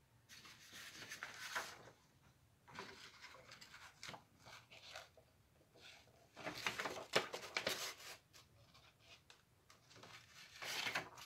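Sheets of printed paper rustling and crinkling as they are picked up, shifted and laid flat, in four irregular bursts of a second or two each.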